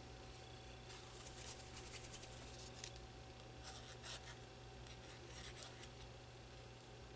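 Faint scratching and light rustling in short strokes as the fine tip of a glue bottle is drawn across a thin paper die-cut, laying down glue.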